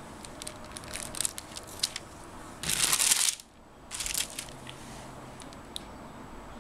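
Handling of cut soap bars: scattered light clicks and taps, with a short, loud scraping rustle a little under three seconds in, then a few more taps.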